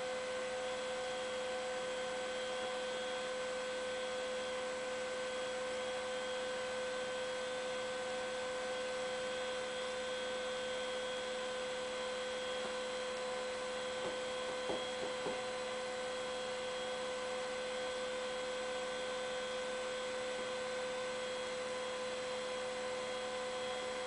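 Steady electrical hum with one strong pitch and fainter higher tones, and a couple of faint soft knocks a little past halfway.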